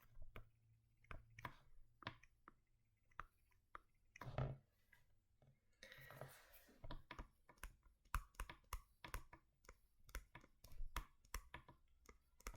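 Faint, irregular clicking from a computer input device as a structure is drawn on screen, with a soft low thump about four seconds in.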